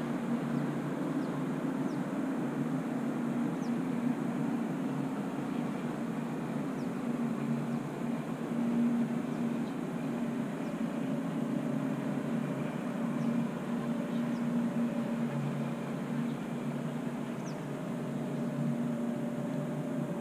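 Steady low mechanical hum that holds level throughout, with a few faint, very short high chirps here and there.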